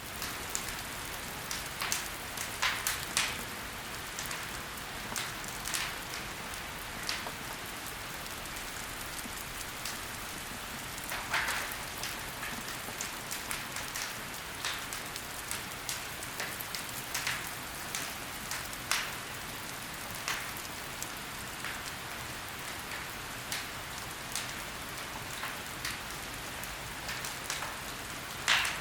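Wood fire burning in a fireplace: a steady hiss with irregular sharp crackles and pops from the burning logs, a few louder pops about 3 and 11 seconds in and one near the end.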